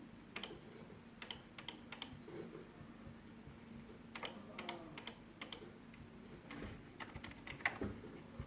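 Faint, irregular clicking of a computer mouse and keyboard, single clicks and short clusters spaced unevenly, over a faint steady hum.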